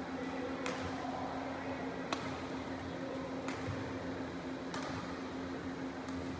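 Badminton rally: racket strings striking the shuttlecock in sharp pings, four times about one and a half seconds apart and once more faintly near the end, over a steady low hum.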